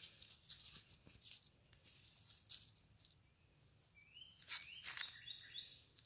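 Dry fallen bamboo leaves rustling and crackling in short irregular bursts, with a bird giving a few short rising chirps about four seconds in.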